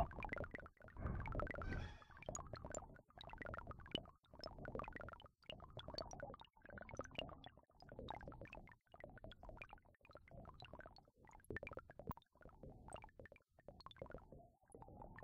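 Electroacoustic music made from processed field recordings: the sound is chopped into short, irregular fragments with brief gaps between them and scattered sharp clicks.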